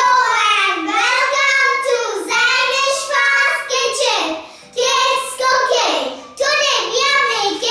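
Two young girls singing together, in short phrases with brief breaks.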